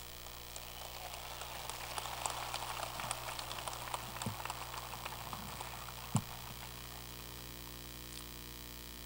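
Faint crowd applause: a thin patter of clapping that swells over the first few seconds and dies away about six seconds in, over a steady electrical hum.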